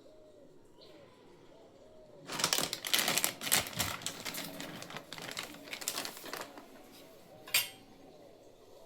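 Rapid clattering of kitchen utensils against dishes for about four seconds, then one sharp click, as grated cheese is put onto a pizza.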